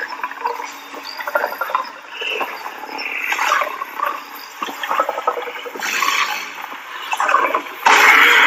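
Recorded dinosaur growls and roars from an animatronic dinosaur's speakers: a rough, breathy growling that swells and fades, with a louder roar starting near the end.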